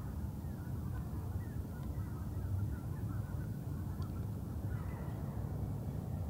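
Faint bird calls, short wavering chirps scattered throughout, over a steady low rumble.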